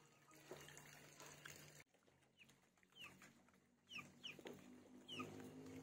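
Faint chicken peeps: about half a dozen short, high calls, each falling in pitch, scattered through the second half after a low background hum cuts off suddenly about two seconds in.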